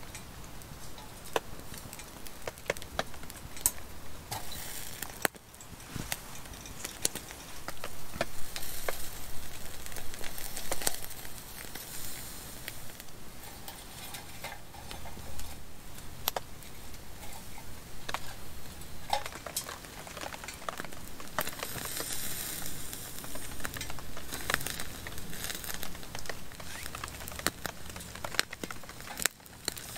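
Italian sausages sizzling on a grate over a Solo Stove Lite wood-burning backpacking stove, with frequent sharp crackles from the burning wood and a hiss that swells now and then.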